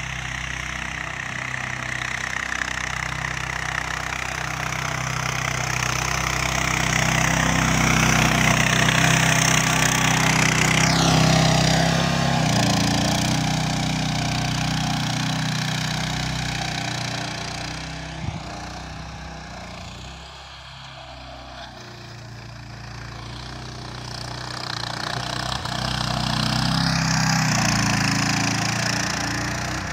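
Engine of a homemade articulated mini tractor running while it pushes snow with its angled blade, growing louder and then fading as it passes, twice. A single short knock sounds about two-thirds of the way through.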